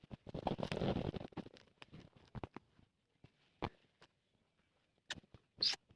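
Rustling and small clicks of things being handled up close: a longer rustle lasting about a second near the start, then scattered light taps and rustles.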